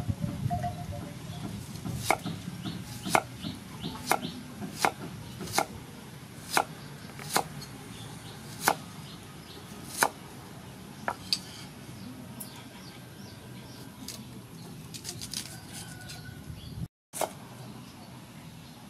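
A cleaver slicing an onion on a thick wooden chopping board, the blade knocking sharply on the wood about once a second, about a dozen cuts, then only softer taps in the second half.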